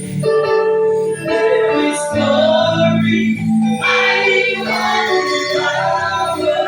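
A gospel praise band performing live: several voices singing a worship song over instrumental accompaniment with sustained low notes.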